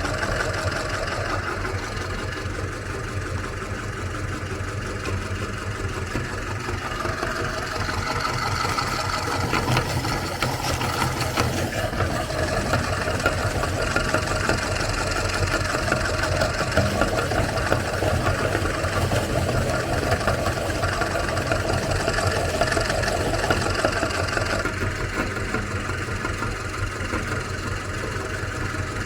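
Electric meat grinder running steadily, grinding Oreo cookies, somewhat louder and rougher through the middle stretch.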